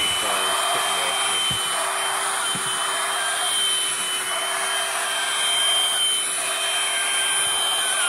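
Hoover Blade vacuum cleaner running steadily with the crevice tool on: rushing suction air over a steady high motor whine. A couple of light knocks come in the first few seconds.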